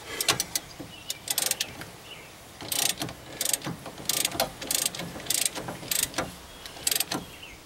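Ratchet wrench clicking in short bursts, about two a second, as it turns the screw of a C-frame ball joint press, pressing a new part into the truck's lower control arm.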